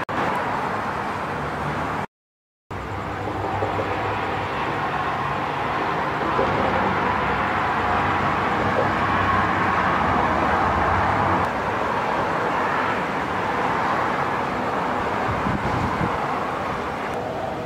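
Steady traffic noise from a busy freeway: the tyres and engines of many passing cars blended into a constant rush. The sound cuts out completely for about half a second, about two seconds in.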